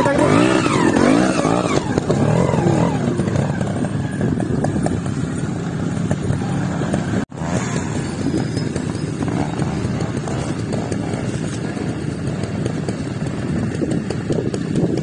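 Trials motorcycle engine revving up and down in quick blips as the bike picks its way over rough ground, loudest in the first few seconds. After a brief dropout a little over seven seconds in, the engine runs on more steadily with a light clatter.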